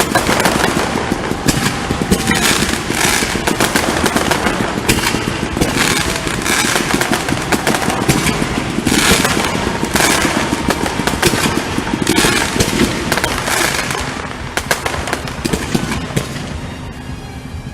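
Aerial fireworks exploding in rapid, overlapping bangs with crackle, like a finale barrage, thinning out and growing quieter over the last few seconds.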